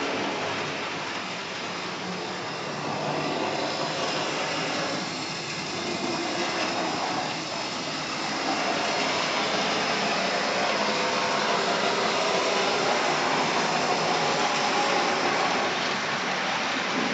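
Model diesel trains running around a model railway layout: a steady whirring hiss of small electric motors and wheels rolling on the rails, a little louder from about halfway through.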